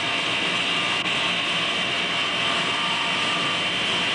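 Motor-generator set, a 3/4 hp induction motor driving a 2900-watt generator, running steadily at speed on mains AC power, with a constant high whine over the machine's hum.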